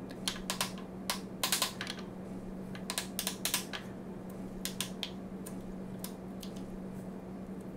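Bench chisel driven with a wooden mallet to chop waste out from between dovetail pins: a string of irregular sharp taps, some in quick clusters.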